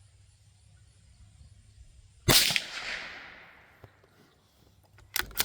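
A single shot from a Savage Mark II FV-SR bolt-action .22 LR rifle about two seconds in, a sharp crack with an echo that fades over a second or so. Near the end a few sharp clicks as the bolt is worked to feed the next round.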